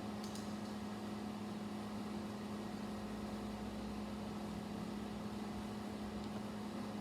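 Steady low hum with an even background hiss, and a couple of faint light clicks.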